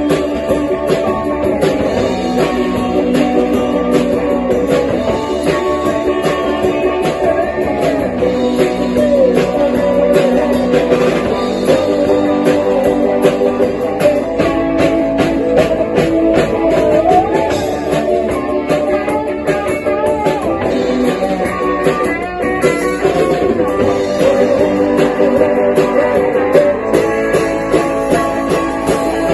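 Live band playing: electric guitar over a steady drum-kit beat.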